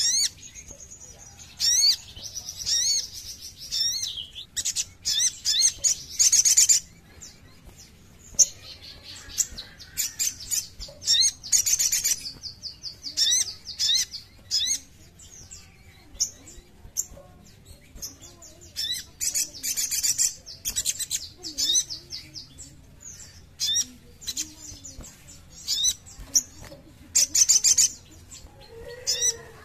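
Sunbird (sogon) singing: repeated bursts of fast, high-pitched chirps and trills, a new phrase every second or two.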